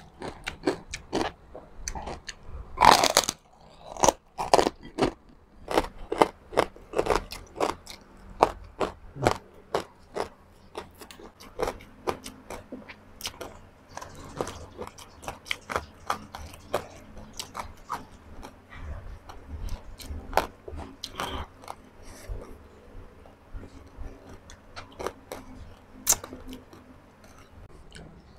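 Close-up crunching and chewing of crispy pork chicharon. The crunches come thick and fast for the first ten seconds or so, the loudest about three seconds in, then thin out into slower, softer chewing.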